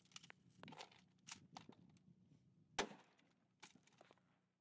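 Light metallic clicks and clinks of hands working an MG3 machine gun's open feed mechanism, then one sharp bang about three seconds in, the stuck cartridge cooking off in the hot barrel's chamber.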